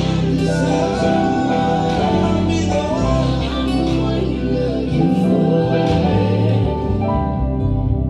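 Slow gospel song with a sung vocal line over sustained keyboard chords, the keys played along with the recording.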